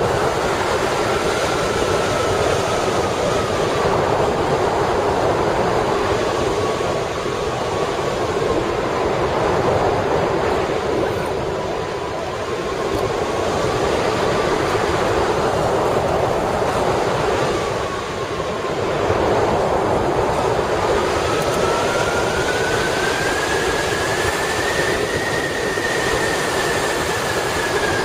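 Rushing airflow over the microphone of a hang glider in flight: a loud, steady roar that swells and eases. A thin whistling tone rides over it, slowly rising and falling in pitch and climbing highest about two thirds of the way through.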